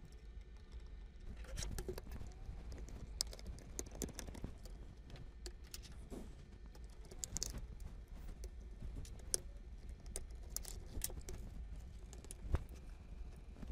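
Irregular light clicks and taps of hands pressing on a Lenovo laptop's keys and handling its plastic case, with a sharper knock near the end.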